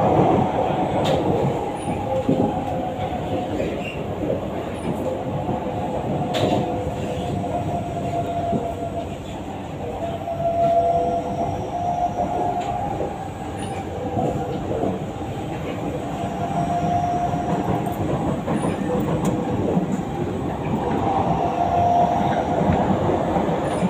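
Metro train running, heard from inside the carriage: a steady rumble from the wheels and track with a wavering whine that swells and fades every few seconds, and a few sharp clicks.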